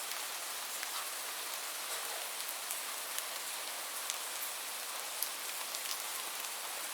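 Heavy rain falling steadily, a dense even hiss with many individual drops pattering close by.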